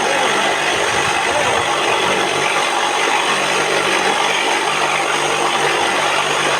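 An engine running steadily, a constant hum under a noisy rattle.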